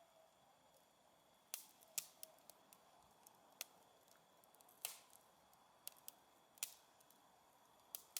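Wood fire crackling: sharp, irregular snaps and pops scattered over a faint steady hiss.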